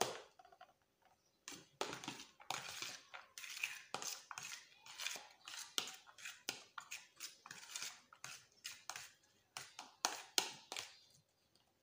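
Metal spoon stirring cooked rice into beaten eggs in a plastic tub, scraping and knocking against the container about twice a second.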